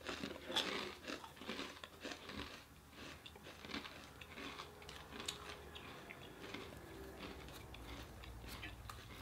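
Close-miked chewing and crunching of crisp fortune cookies: irregular crunches, small crackles and mouth clicks.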